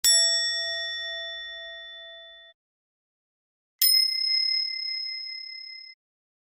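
Two ding sound effects, one after the other. The first is a lower, bell-like ding that rings out and fades over about two and a half seconds. After a gap of complete silence, a higher, brighter ding starts nearly four seconds in and rings for about two seconds.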